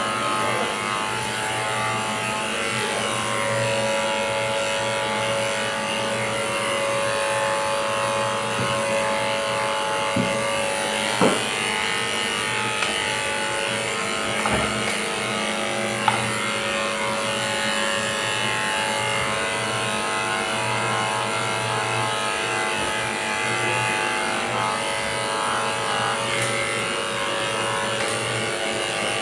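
Corded electric dog-grooming clippers buzzing steadily while trimming a Pomeranian's coat, with a few short clicks about a third to halfway through.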